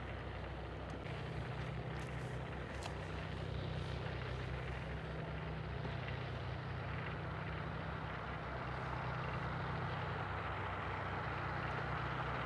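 An engine running steadily with a low hum, under a constant rushing hiss that swells slightly toward the end.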